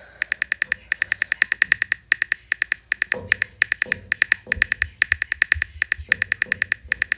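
Rapid synthetic keyboard tap clicks from a texting-story app's typing animation, about eight clicks a second, in runs with short pauses, one click per letter as a message is typed out.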